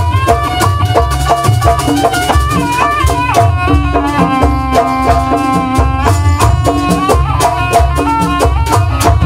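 Live jaranan ensemble music: a reed pipe plays a stepping melody over drums and jingling, rattle-like percussion keeping a steady beat.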